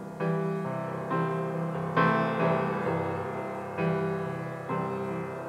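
Grand piano playing a slow accompaniment: chords struck about every one to two seconds, each ringing on and fading before the next.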